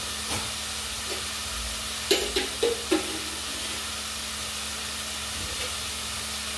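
Filet mignon slices searing in a pan over high heat: a steady sizzle, with four short sharp pops in quick succession a little after two seconds in.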